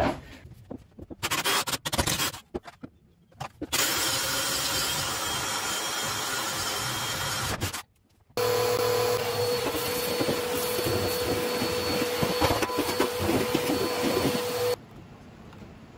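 A DeWalt 20V cordless drill with a 1-inch wood bit boring a faucet hole through a countertop for about four seconds. Then a vacuum runs steadily with a constant hum, sucking up the wood shavings, and stops shortly before the end.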